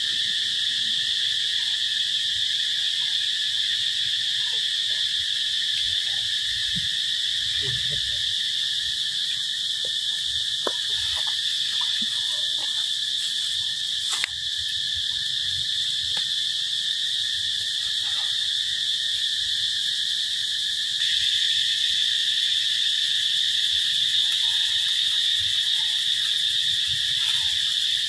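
Steady, high-pitched chorus of calling insects, droning without a break and growing a little louder about two-thirds of the way through.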